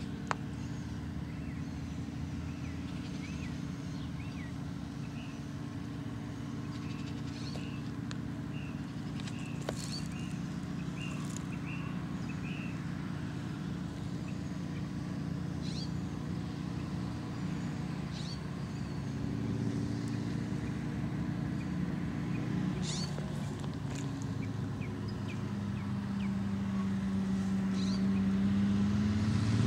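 Engines of a string of rail motor cars, a yellow railbus leading smaller speeders, running steadily as they approach along the track, growing louder over the last ten seconds. Short high chirps sound in the first half.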